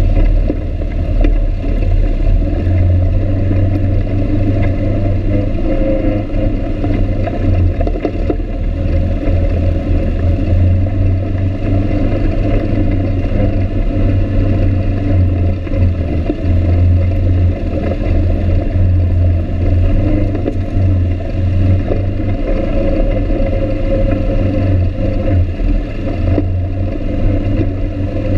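ATV engine running steadily as the quad rides along a rough, rocky dirt trail, its low engine note holding even throughout.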